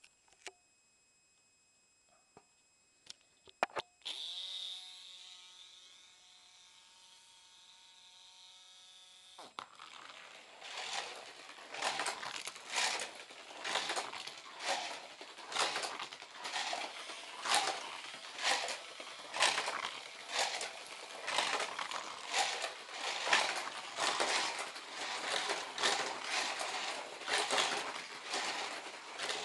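Small battery-powered electric motors of 1970 toy racing cars (Hot Wheels Sizzlers and Corgi Electro Rockets). After a few light clicks of the cars being handled, one motor whines steadily at a single pitch for about five seconds. Then the cars run on a plastic track, their whirring swelling and fading a little more than once a second as they lap.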